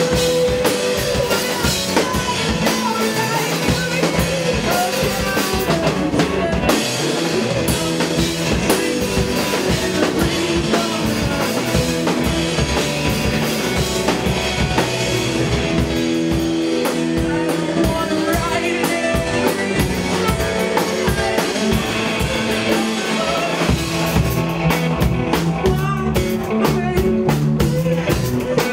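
Live psychedelic rock band playing, with a drum kit beating steadily under sustained electric guitar tones.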